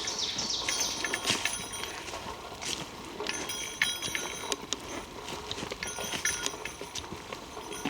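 Footsteps crunching irregularly on a forest trail's leaf litter and twigs, with faint high, steady tones that come and go in blocks.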